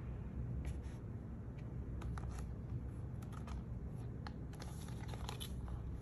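Paperboard packaging of an Apple Watch band being handled: scattered light rustles and taps as the box is picked up and turned over, over a steady low hum.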